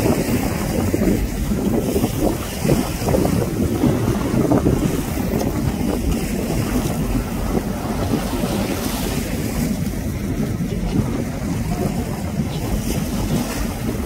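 Wind buffeting the microphone on a boat at sea, a steady low rumble with gusts, over the rush of choppy sea water.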